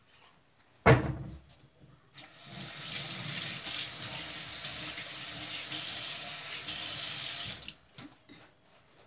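A sharp knock about a second in, then a kitchen tap running into a stainless steel sink, with a hand rinsed under the stream, for about five seconds until the water is cut off sharply.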